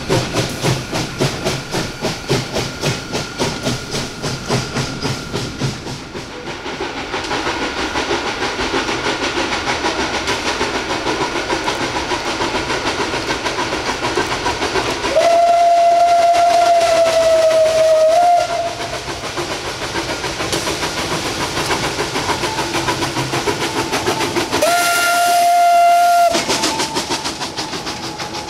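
Steam locomotive 423.0145, a ČSD class 423.0, working a freight train: quick, even exhaust chuffs at first, then a steady chuffing rush. About halfway through it gives a long blast on its steam whistle, and a second, shorter blast comes near the end.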